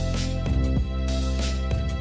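Background music with a steady beat and sustained chords.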